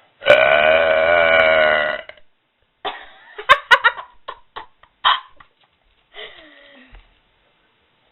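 A person's long, loud burp of nearly two seconds, held at a steady pitch. About a second later comes a run of short, sharp clicks and sputters.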